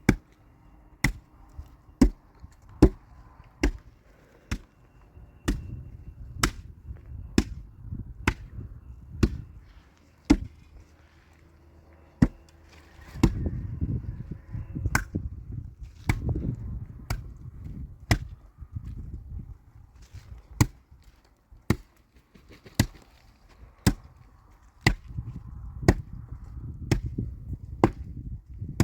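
Repeated sharp strikes in an even rhythm, a little more than one a second, over a low rumble.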